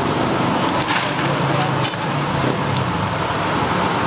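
Steady hum of city street traffic, with a few light clinks about one and two seconds in.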